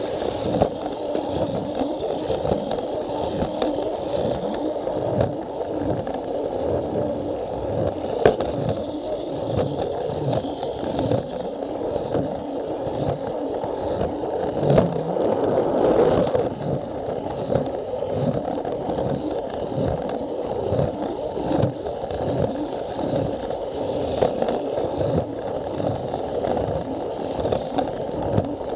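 Plarail toy train's small battery motor and gearbox running with a steady whine, its plastic wheels clacking over the track joints about twice a second, with an occasional sharper click.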